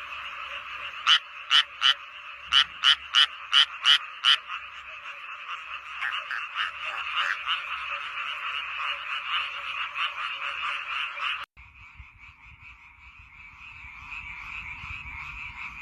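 A dense chorus of many frogs calling, with a run of about eight loud, separate croaks from one nearby frog in the first few seconds. About eleven and a half seconds in it cuts abruptly to a different, quieter frog chorus with a low rumble beneath it.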